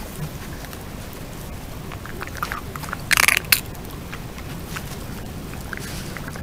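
European badger rooting with its snout in grass and soil close to the microphone: scattered rustles and crunches, with a louder noisy burst and a sharp click about three seconds in, over a steady hiss.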